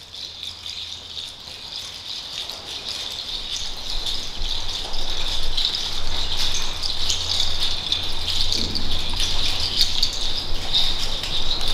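Rattles shaken continuously in a fast shimmer of small strokes, growing louder over the first few seconds and then holding, with no singing.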